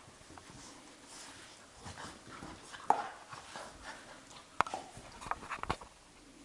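Labrador puppy and adult Labrador play-fighting: soft scuffling and knocks, with a brief dog whine about three seconds in. Near the end come several sharp clicks as the puppy's claws skitter on the tiled floor.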